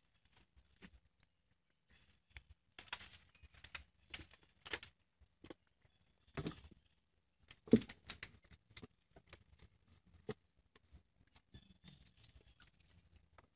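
Water dripping and splashing off a collapsible mesh fish-and-shrimp trap as it is hauled up out of the canal. Scattered taps and knocks come from the trap's frame and mesh against the wooden boat, the loudest a little past the middle.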